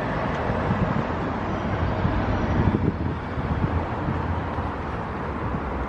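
Outdoor urban ambience: a steady low rumble of distant traffic, with wind buffeting the microphone.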